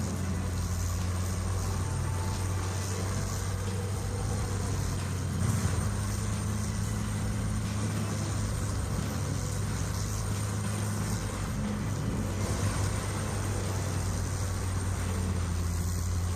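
Diamond Z wood grinder running under load: a steady, deep mechanical drone, briefly louder about five seconds in and again near twelve seconds.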